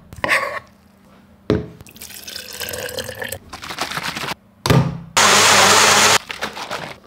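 Water poured into a blender jar of soaked mung beans, then a knock as the jar goes onto the base. A small personal blender then runs loud and steady for about a second and cuts off abruptly.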